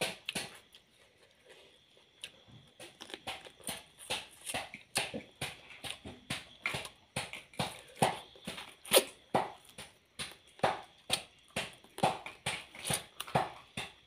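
Close-miked wet eating sounds: lip smacks and sucking as crab meat is eaten from the shell, repeating about two to three times a second after a quieter first two seconds.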